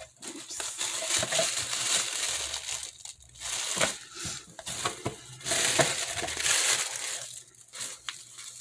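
Paper packing material in a box being rustled and crumpled by hand. It comes in uneven stretches with short pauses, then quiets near the end.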